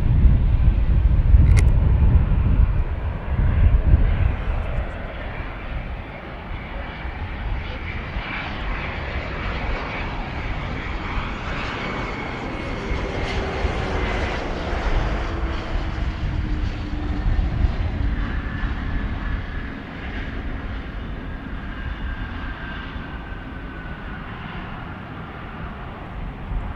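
Airliner engines passing by, a steady noise with a whine that slowly slides down in pitch as the aircraft goes past. Wind rumbles on the microphone in the first few seconds.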